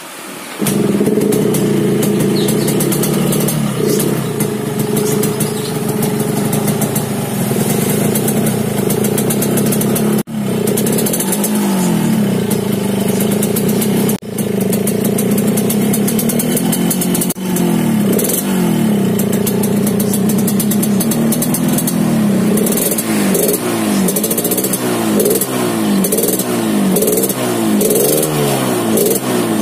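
Yamaha RX-King two-stroke single running through its stock, ungutted exhaust with a modified baffle and the carburettor set rich, giving the deep growling 'ngorok' note. It comes in suddenly about half a second in and runs steadily, then from about eleven seconds the throttle is blipped again and again, the revs rising and falling, with quicker, regular blips in the last several seconds.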